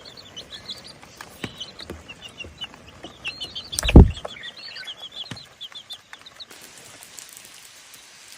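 Birds chirping in a quick run of short, high peeps that stop about two-thirds of the way through. A single loud thump about four seconds in.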